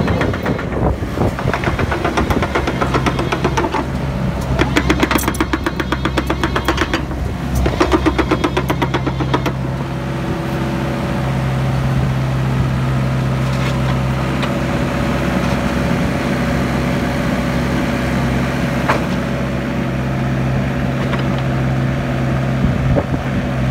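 Diesel engine of a Hyundai Robex 60CR-9A excavator running. A fast, even rattle sits over it for about the first ten seconds, after which the engine runs on steadily with an occasional click.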